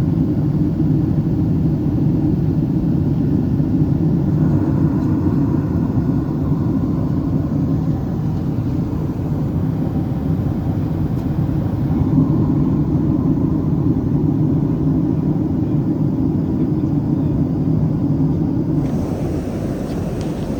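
Steady low rumble of a jet airliner heard from inside the cabin, with the tone shifting slightly about four seconds in and again near the end.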